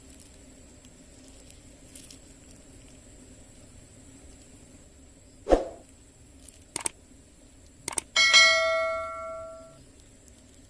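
A small metal bell struck once, ringing out and fading over about a second and a half, the loudest sound here. Before it come a dull thump and a couple of sharp clicks.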